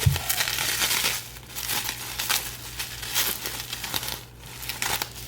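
Packaging being crinkled and torn open by hand: a dense run of crackling rustles, a brief lull, then a few more rustles near the end.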